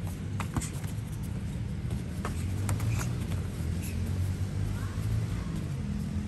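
Muay Thai sparring in boxing gloves: a handful of sharp slaps from punches and bare feet on the foam mat, bunched in the first three seconds, over a steady low rumble.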